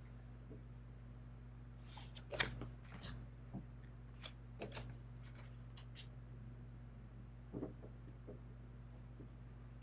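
Tarot cards being handled: scattered soft taps and slides as cards are picked up and laid down on the decks, with a low steady hum underneath.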